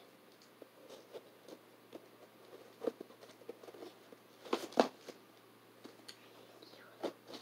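Soft scattered taps and rustles of packaged toy cars (cardboard-and-plastic blister cards) being handled and shuffled, with a louder cluster of clattering knocks about four and a half seconds in and another short knock near the end.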